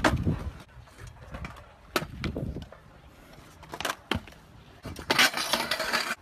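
Stunt scooter on concrete: several sharp knocks of the deck and wheels hitting the ground, and a louder rushing scrape of about a second, about five seconds in.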